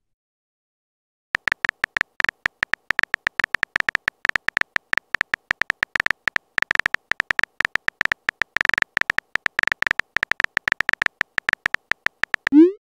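Phone keyboard typing sound effect: a rapid, uneven run of short, high beeping ticks, one per key press, starting about a second in. Near the end a short rising swoop begins.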